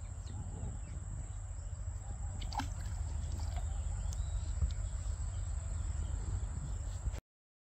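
Outdoor ambience: a low rumble with a steady high-pitched whine over it and a few faint chirps. It cuts off suddenly about seven seconds in.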